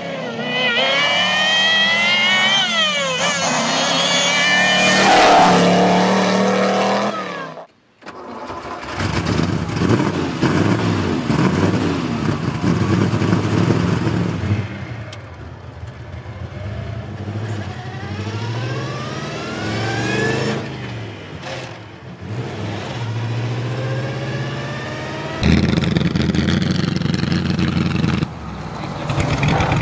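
Straight-eight car engines in three clips. A racing car's engine revs up through the gears on a hill climb, getting louder until a sudden cut. Then a supercharged 2.9-litre twin-cam straight-eight revs and pulls in rising sweeps, and near the end a vintage Alfa Romeo 8C's straight-eight runs loudly.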